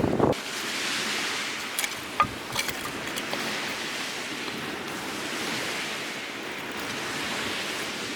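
Strong wind rushing steadily, swelling and easing. A low rumble of wind on the microphone cuts off just after the start, and a few short sharp knocks come about two seconds in.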